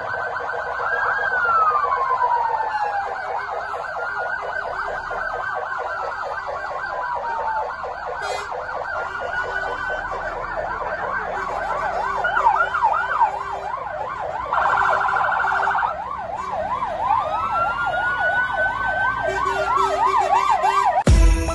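Several fire engine sirens sounding at once: slow rising-and-falling wails overlap with fast yelping sirens that go up and down about two or three times a second.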